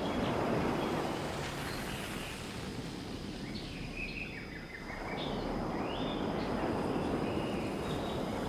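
Outdoor ambience: a steady rush of noise that eases slightly about halfway through and swells again, with small birds chirping over it.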